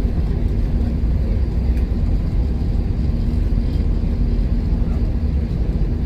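Steady low rumble inside the cabin of an Airbus A321 on the ground, its IAE V2533-A5 turbofan engines running at idle during taxi, with a faint steady hum underneath.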